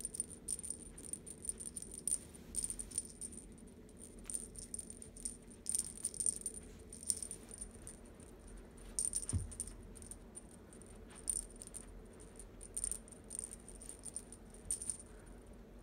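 A cat wand toy with an owl on the end rattling and jingling as it is jiggled and batted, in about a dozen irregular shakes with a thin high ring, stopping near the end.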